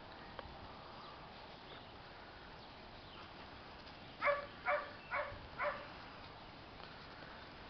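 Pit bull-type dog barking four quick times in play, about half a second apart, a little over four seconds in.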